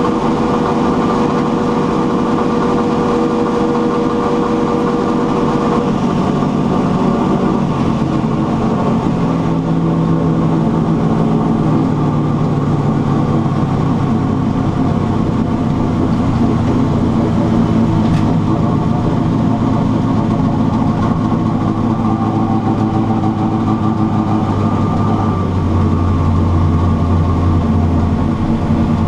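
Engine of a carburetted car with a rear-mounted turbo, running steadily as the car is driven. Its pitch steps up and down a few times with changes in speed.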